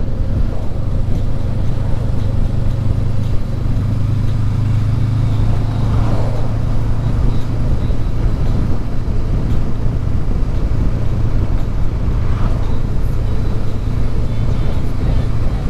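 Honda CB500X parallel-twin engine running steadily at cruising speed, a constant low drone with road and wind noise.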